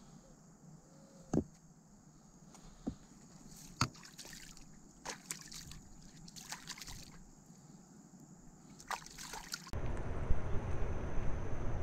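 Hands splashing and rinsing in shallow river water: a few small knocks, then a run of short sloshes and drips. About ten seconds in it gives way to steady, louder wind noise buffeting the microphone.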